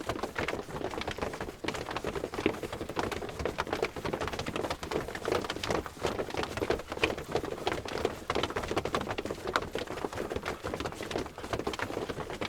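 Footsteps of a crowd of people walking: many overlapping steps making a steady, dense patter of taps with no let-up.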